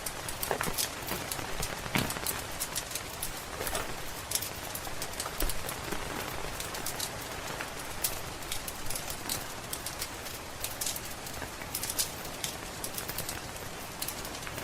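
Steady rain patter with a wood fire crackling, giving many sharp pops and snaps throughout.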